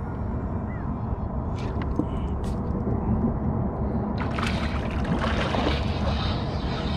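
Water sloshing and splashing beside a small fishing boat over a low, steady rumble. About four seconds in the splashing grows louder and rougher, full of small crackles.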